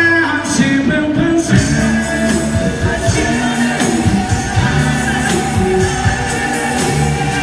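Loud quadrilha junina music with singing over a steady beat.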